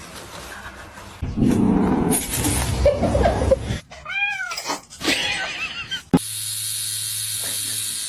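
A cat meowing: one clear meow that rises and falls about four seconds in, then a couple of shorter ones, after a loud noisy stretch. About six seconds in a sharp click is followed by a steady hum.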